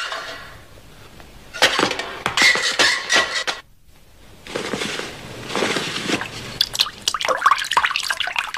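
Cartoon sound effects: irregular runs of clicks and knocks mixed with rushing noise, in two stretches with a short pause between them.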